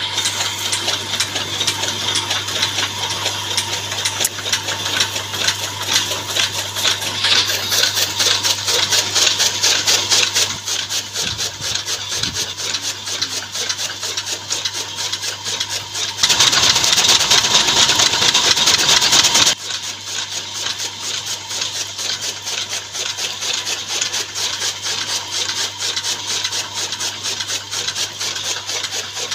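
Electric-motor-driven chaff cutter (toka) running and chopping green fodder fed in by hand: a steady motor hum under a fast, continuous clatter of cuts. It gets louder for about three seconds just past halfway.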